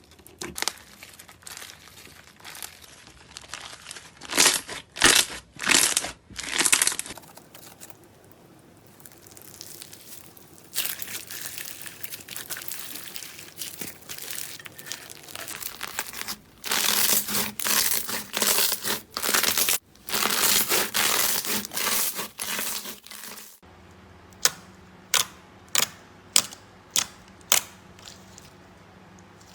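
Slime being pressed, stretched and poked in a few short clips, crinkling and crackling. Near the end comes a run of about seven sharp pops.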